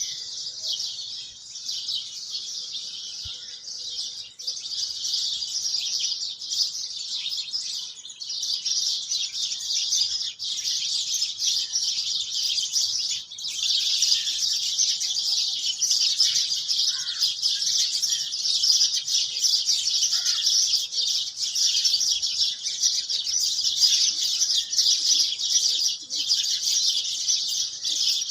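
Birds chirping in a dense, continuous chorus of many high, quick chirps.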